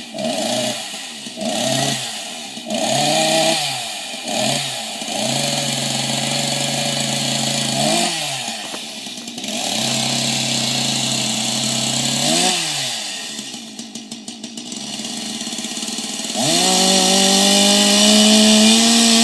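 Chainsaw engine being revved: several short throttle blips and steady part-throttle stretches, a dip to a lumpy lower speed, then about three-quarters of the way through it is opened up suddenly and held at high revs, the pitch creeping slightly higher.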